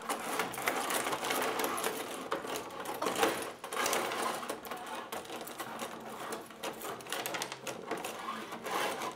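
Tabletop rod hockey game in play: a busy, continuous clatter of clicks and knocks from the rods, plastic players and puck.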